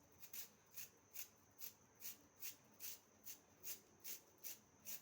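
Ginger being grated on a hand grater: faint, even rasping strokes, about two or three a second, that stop near the end.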